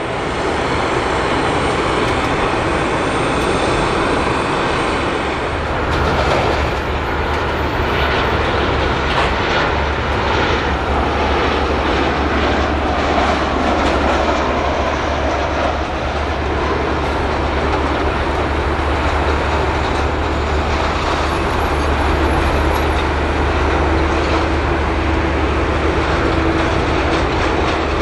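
Jet airliner engine noise: a loud, steady rush over a low rumble, with a steady hum coming in about three-quarters of the way through.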